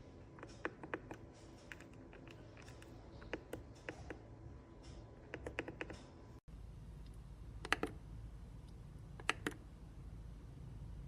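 Irregular light clicks and taps. After a brief dropout, a few sharper, separate clicks follow over a faint low hum.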